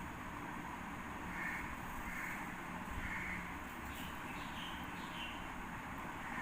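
A crow cawing three times about a second apart, followed by a run of short, higher bird chirps, over steady background hiss.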